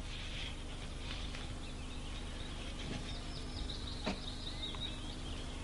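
Faint birdsong: high chirps and wavering trills over a steady low hum, with a single click about four seconds in.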